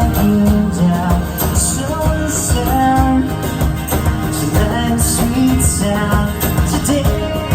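Live band playing an original pop-rock song, the instruments carrying on after a sung line.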